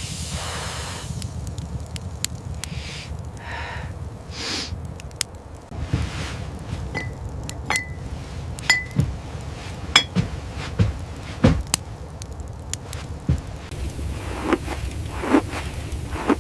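Scattered clicks and light clinks, a few with a brief ring, over a steady low rumble.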